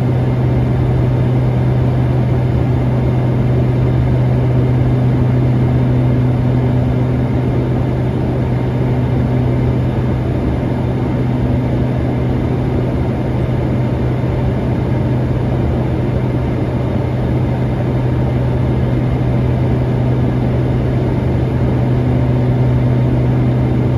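Light propeller aircraft's engine and propeller running with a steady low drone, heard inside the cabin along with rushing air noise, holding an even pitch and level throughout.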